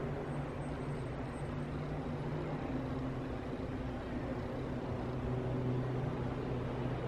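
Steady low hum under an even hiss; the hum's pitch drops slightly about halfway through.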